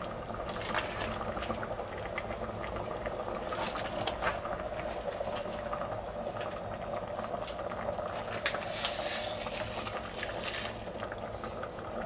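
Thick tomato sauce simmering in a stainless steel pot, bubbling and popping as it cooks down, with a spoon stirring through it now and then over a faint steady hum.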